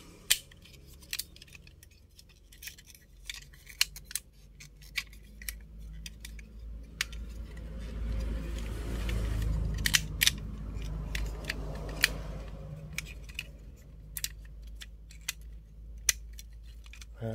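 Plastic clicks and snaps of a transforming toy robot's parts being folded and locked into place as it is turned into a tracked excavator. A low rumble rises and fades in the middle.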